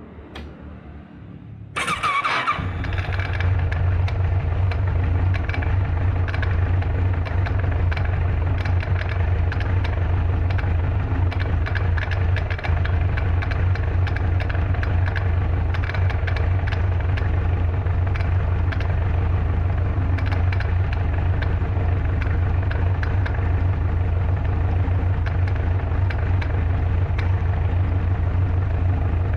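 Kawasaki ZRX1200R inline-four engine started cold, catching just under two seconds in, then idling steadily with a fast clattering rattle. The rattle comes from the left side of the engine and is caused by a loose generator (alternator) bolt.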